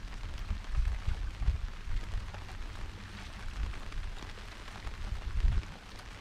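Steady rain falling on the water and the boat, a fine even hiss speckled with drops, with an uneven low rumble underneath.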